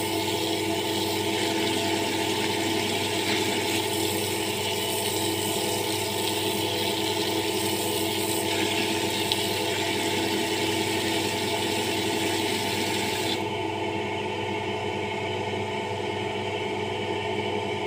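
Water running from a wall tap and splashing over a bare foot into a plastic bucket as the foot is washed and rubbed by hand. The flow stops abruptly about thirteen seconds in. A steady hum of several tones runs underneath throughout.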